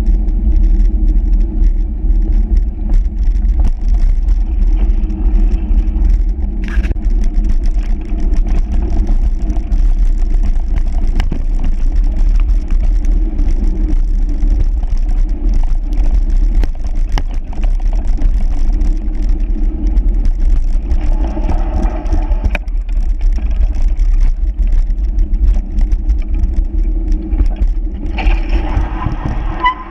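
Steady low rumble of a moving vehicle, engine and road noise with no break.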